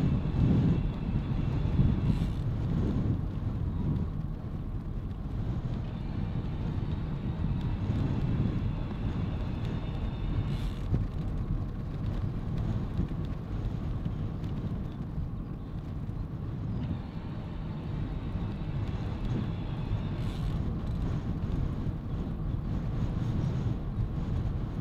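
Wind buffeting a windscreened microphone over the low rumble of bicycle tyres rolling on a paved road. A faint high whine comes and goes a few times.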